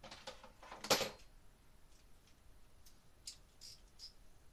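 Small hardware being handled: a rustle and clatter with one sharp knock about a second in, then a few light clicks.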